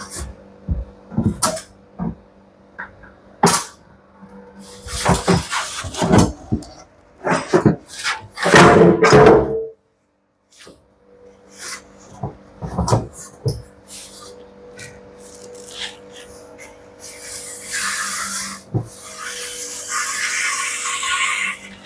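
Knocks, clatters and scraping of metal parts being handled as a washing machine's drum, its shaft freshly greased, is fitted into the new outer tub. The sound ends in a longer hissing, scraping stretch, over a faint steady hum.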